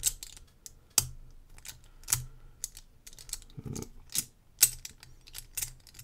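Metal pieces of a Huzzle Cast Padlock puzzle clicking and clinking irregularly as they are turned and slid against each other by hand.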